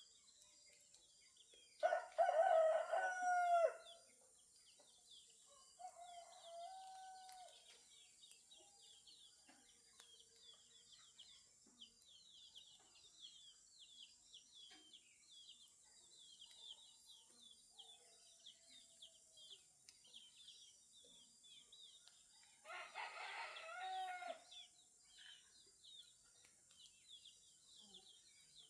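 Rooster crowing twice, about twenty seconds apart, the first crow the louder, with a fainter call a few seconds after the first. Small birds chirp rapidly and continuously.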